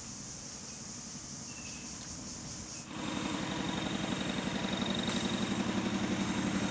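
A motor engine idling with a fast, even pulse, growing clearly louder about three seconds in.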